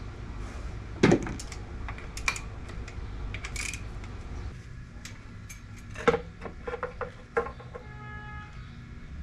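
Scattered metallic clicks and clinks of hand tools and parts on an engine as the valve cover is taken off. The loudest comes about a second in, with a busier cluster around six to seven seconds in and a short run of ringing ticks just after.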